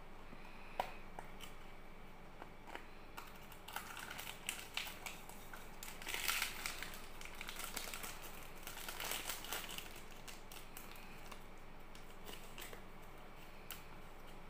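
Hands opening a Cadbury Dairy Milk Lickables plastic cup and handling the plastic-wrapped toy inside. There is a sharp plastic click about a second in, then bursts of crinkling plastic wrapper with small clicks, loudest around the middle.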